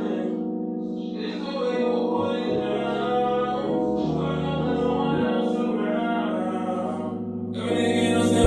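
Background music: a slow song of long held keyboard notes with singing.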